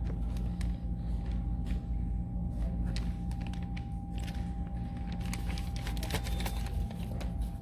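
Steady low background hum with a thin, even tone running through it, and scattered small clicks and ticks.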